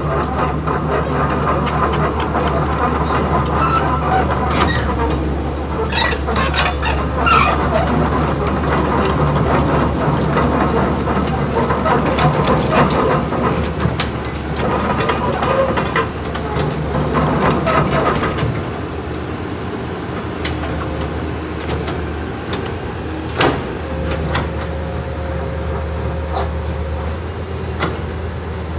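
Caterpillar 320BL excavator's diesel engine running with a steady low hum, with metal clanks and knocks from the machine over the first two-thirds. After that the sound settles to a steadier run, with one sharp knock.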